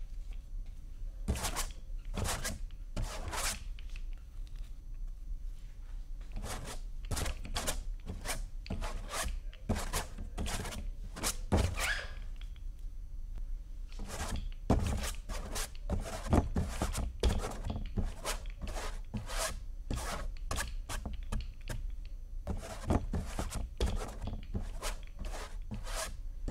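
A bristle paintbrush scratching and dabbing paint onto a canvas in runs of quick strokes with short pauses between, over a steady low hum.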